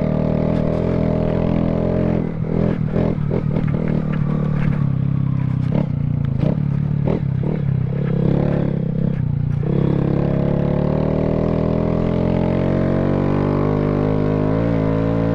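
Honda Grom's 125cc single-cylinder engine running under a rider on a dirt path, with a burst of short knocks and rattles through the middle as the bike goes over rough ground. Later the engine note climbs steadily as the bike speeds up.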